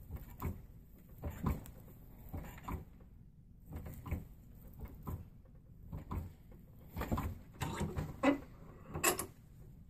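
Strands of cord rustling and scraping as they are crossed and pulled tight while braiding a bronc rein, in a dozen or so irregular short strokes, the loudest near the end.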